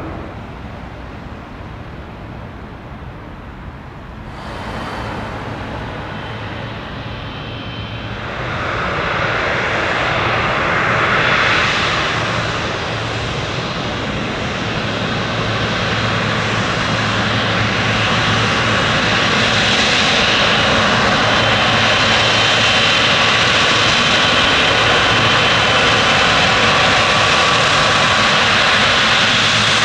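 Jet airliner's turbofan engines, fainter at first and growing louder from about eight seconds in, then holding loud and steady with a thin high whine over the noise.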